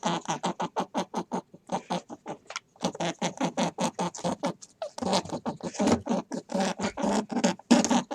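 An animal calling in rapid short notes, about five or six a second, in long uneven runs broken by brief pauses.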